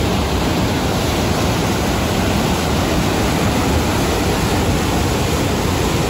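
Whitewater rapids rushing through a narrow rock gorge: a loud, steady rush of churning water.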